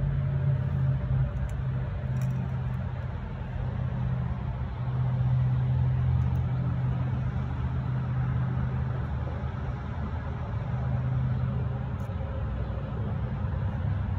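Steady low vehicle rumble with a hiss of noise over it.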